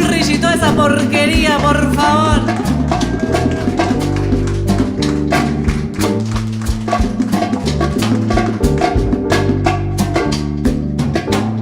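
A live Latin dance band playing: a wavering melody line over held bass notes, with drums and percussion keeping an even beat from about four seconds in.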